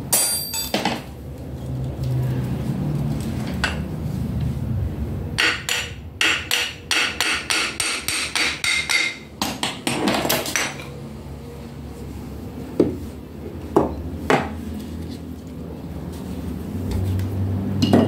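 Rapid metallic knocking, about three or four strikes a second for some five seconds, then three single knocks, as the metal parts of a water pump are hammered and tapped apart during disassembly.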